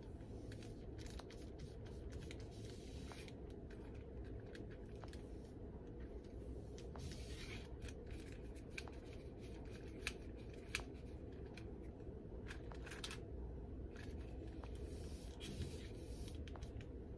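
A paintbrush scrubbing acrylic paint onto sand-textured canvas paper: faint, repeated scratchy strokes over a low steady hum, with a couple of sharper ticks about ten seconds in.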